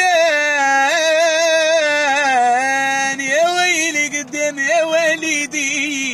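A man singing unaccompanied, drawing out long notes that waver and slide in melismatic ornaments, with a brief break for breath about three seconds in.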